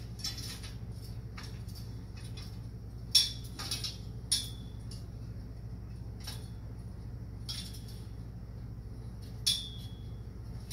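Metal assembly hardware and tools clinking and tapping as a frame is bolted together: a handful of sharp clinks, the loudest about three seconds in, several ringing briefly.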